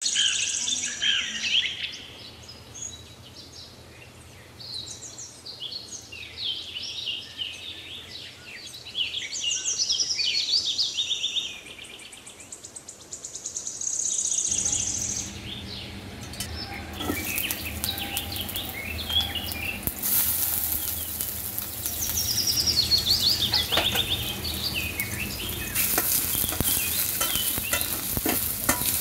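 Birds chirping during the first half. Then sliced onions sizzling in hot oil in a stainless-steel kadai, with a spatula stirring and scraping the pan.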